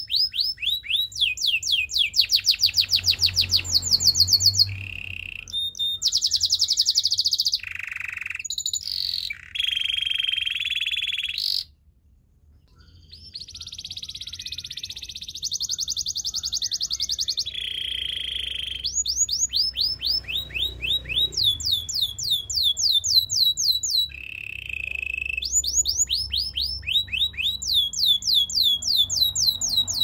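Canary singing a long song: runs of fast, evenly repeated sweeping notes alternating with steady held rolls, with a brief pause about twelve seconds in.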